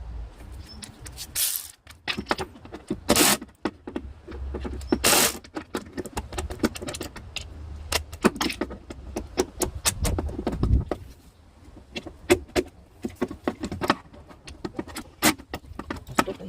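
Irregular metallic clinks, clicks and knocks of hand tools and engine parts being handled, a few of them sharply louder.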